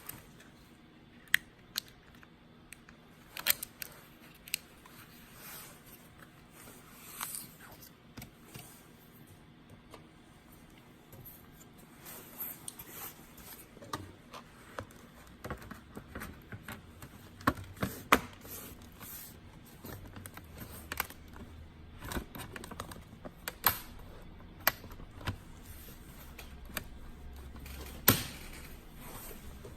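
Irregular small clicks and taps of hands handling a Lenovo Edge 15 laptop and its parts, plastic and metal knocking lightly. The clicks come more often in the second half, with a faint low hum underneath.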